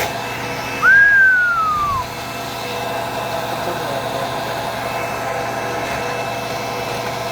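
Steady machine hum, like an idling engine or running motor, with a few constant tones in it. About a second in, a single loud whistle-like tone sweeps down in pitch over about a second.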